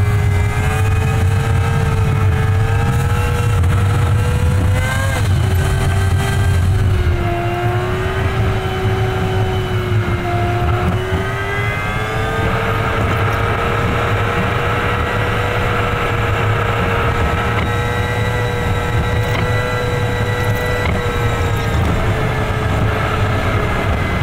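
Truck engine and road noise in fast-forward playback: a steady pitched engine whine over heavy low rumble. The whine drops in pitch about five seconds in and climbs again around twelve seconds.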